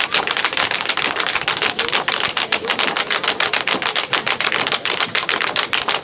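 Tap shoes striking the floor in a rapid run of crisp clicks, many a second, as dancers tap through a routine.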